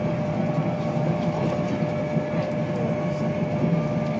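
Steady rumble of wheels on rail inside a Mark 4 coach of an InterCity 225 train running at speed, with a thin steady hum above it.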